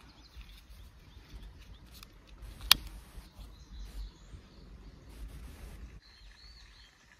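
A single sharp click from a long-nosed gas lighter's igniter, a little before the middle, over a low outdoor rumble. Faint bird chirps come in near the end.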